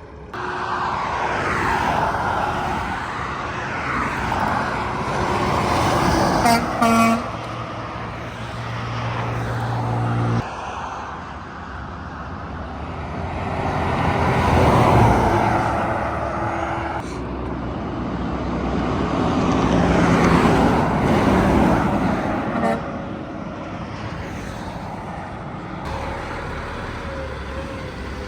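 Highway traffic with semi trucks passing, the noise swelling and fading as each goes by; about six and a half seconds in, a truck's air horn gives two short blasts.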